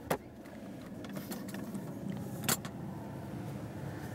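A few sharp clicks from hands on the truck's dashboard and steering-column controls, the loudest about two and a half seconds in, over a steady low hum in the cab.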